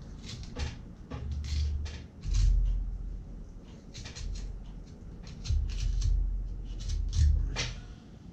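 Curved boning knife cutting a Spanish mackerel on a plastic cutting board near the belly bones: a run of short scraping and crunching strokes, with dull bumps as the fish is pressed and moved on the board.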